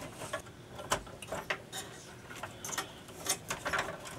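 Irregular small clicks and taps as wire connectors are pushed onto circuit-board pins, with a cluster of quick clicks near the end.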